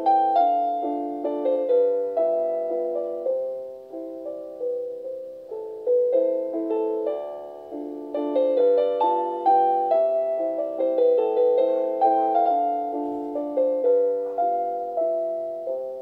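Calm relaxation piano music: notes and chords struck a few times a second, each left to ring and fade, mostly in the middle register.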